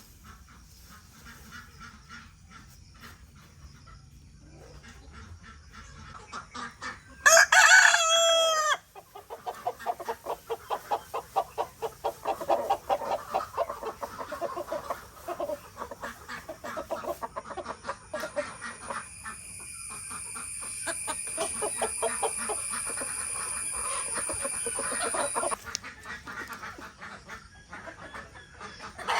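A rooster crows once, loudly, about seven seconds in, followed by a long run of rapid clucking from chickens. A steady high-pitched whine sounds for several seconds in the second half.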